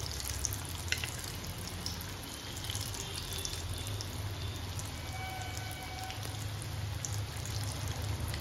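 Beetroot kebabs shallow-frying in oil in a nonstick pan: a steady sizzle full of small crackles and pops, over a low steady hum.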